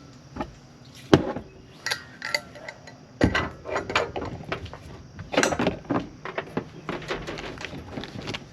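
Rummaging and setting things down: a string of irregular knocks and clatters, loudest about a second in, as camp cooking gear is got out for breakfast.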